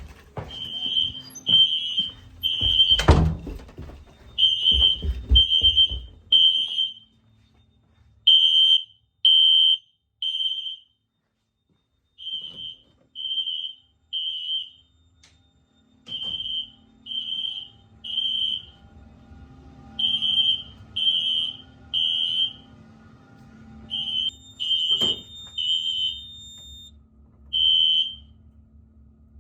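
Smoke alarms sounding a high, piercing beep in the temporal-three evacuation pattern: three short beeps, a pause, then again, about every four seconds. Footsteps and a loud thump come over the first few seconds, and a faint low hum sets in about halfway through.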